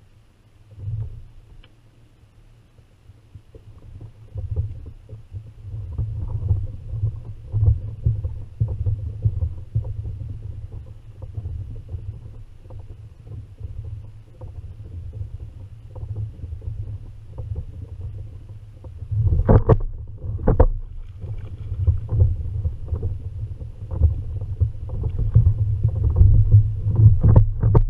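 Low, uneven rumble of water against a Hobie Revo kayak's hull, picked up by a camera mounted on the kayak. A few sharp knocks come about two-thirds of the way through and again near the end.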